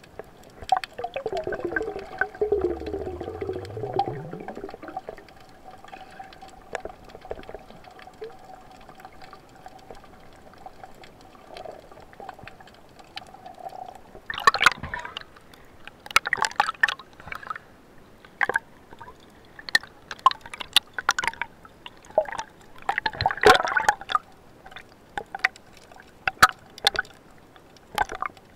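Underwater sound picked up by an action camera in its waterproof housing: sloshing, gurgling water with a faint steady whine through the first half. Louder bursts of bubbling water noise come at irregular moments, the strongest around the middle and again near the end.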